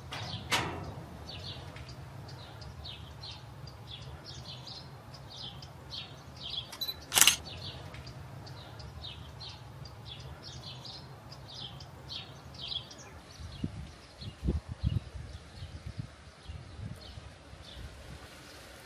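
Outdoor ambience of small birds chirping in short, repeated calls, over a steady low hum. A single sharp click sounds about seven seconds in, and a series of low thuds comes near the end.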